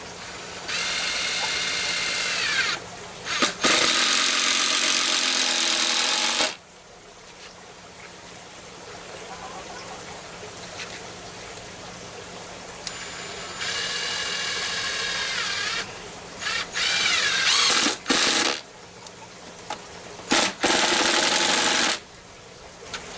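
Handheld electric drill running in several bursts of one to three seconds, with short trigger blips between them; the motor whine drops in pitch as each burst winds down.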